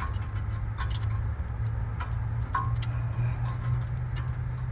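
Light, sparse metallic clicks from a brake caliper piston compressor tool being screwed down to press the piston back into its bore, over a steady low hum.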